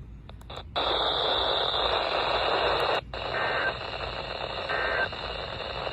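Weather radio receiver hissing with static after a warning broadcast ends. The hiss comes on about a second in, cuts out for an instant around three seconds, then carries on a little quieter with faint brief tones in it.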